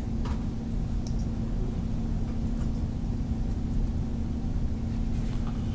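Steady low hum of background noise, with a few faint short clicks scattered through it.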